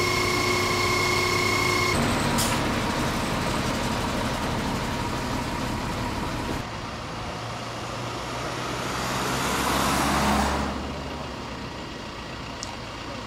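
Road traffic passing on a highway: a steady whine for the first two seconds, then the continuous noise of passing vehicles, with one growing louder to pass close about ten seconds in and fading away.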